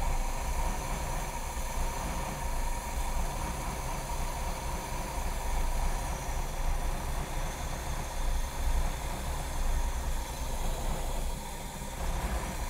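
GM 5.7-litre (350) carburetted marine V8 running steadily while fogging oil is sprayed from an aerosol can into its carburettor, the spray hissing over the engine. The oil is being fed in to coat the engine's insides and make it stall, a winterizing step, and the engine keeps running.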